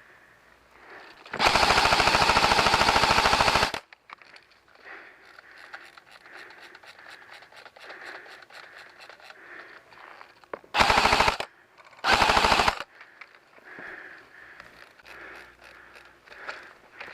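Airsoft rifle firing on full auto: one long burst of about two and a half seconds, then two short bursts of about half a second each, close together near the end.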